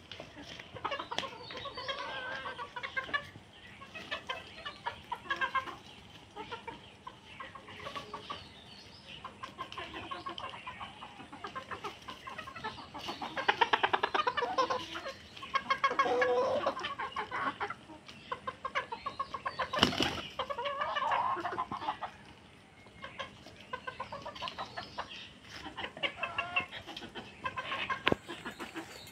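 Domestic hens clucking and calling while they feed, with a louder run of quick, rapid clucks about halfway through. A single sharp knock comes about two-thirds of the way in.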